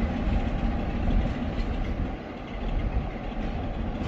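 Railway train moving on the track, a continuous noise of wheels on rails with the sound of rolling stock, dipping slightly about halfway through.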